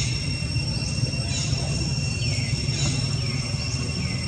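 Baby macaque crying: a run of short, shrill squeals, each falling in pitch, repeated about once a second, over a steady high insect drone.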